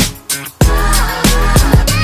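Background music: a hip hop style track with a heavy bass beat and a sung vocal line.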